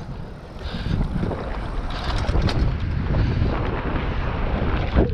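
Wind buffeting the bike-mounted camera's microphone while a mountain bike rolls fast down a dry dirt trail, its tyres on the ground and the bike rattling over bumps. The noise dips briefly just after the start, and there is a sharp knock near the end.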